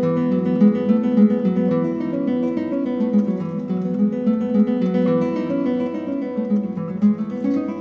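Background music: acoustic guitar played with plucked and strummed notes.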